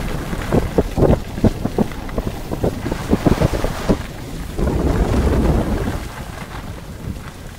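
Wind rushing over the microphone during a downhill ski run, with skis scraping and chattering over packed snow in short irregular strokes. The rushing swells about four and a half seconds in and eases off near the end.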